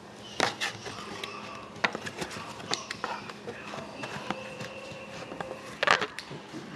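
Hockey trading cards being handled: scattered light clicks and rustles as the cards are shuffled and slid against each other, with a louder short rustle about six seconds in.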